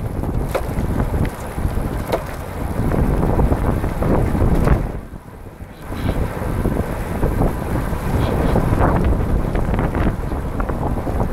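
Wind buffeting the microphone of a camera mounted on a recumbent trike riding at speed, a steady low rumbling rush. It drops off for about a second around five seconds in while the trike passes under an overpass, then comes back.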